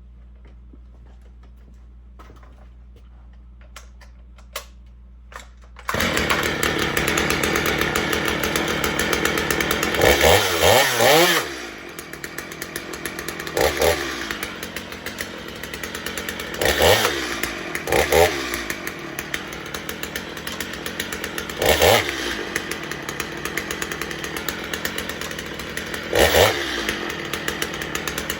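Stihl MS 250 two-stroke chainsaw running. It comes in abruptly about six seconds in at a high, even speed, settles to idle after about five seconds, and is then revved up and back down every few seconds.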